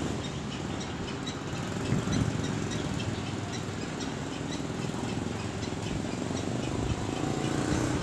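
Outdoor ambience: a steady low rumble of vehicle traffic, with faint scattered high chirps over it.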